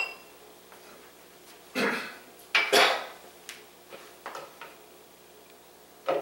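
Kitchen dishes and utensils being handled: a glass clink right at the start, then two louder clatters about two and three seconds in, and a few lighter taps after.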